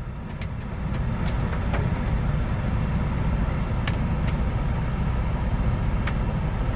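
Semi truck driving, heard from inside the cab: a steady low engine and road rumble that grows louder about a second in, with a few scattered sharp ticks over it.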